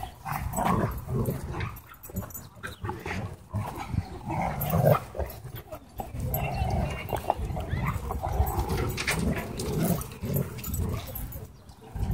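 Dogs growling in play while tugging a toy between them, in an uneven run of sounds.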